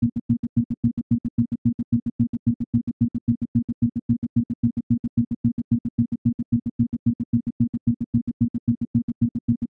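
Isochronic tone for brainwave entrainment: a low synthesized hum switched sharply on and off in even, rapid pulses, several a second, at a steady level.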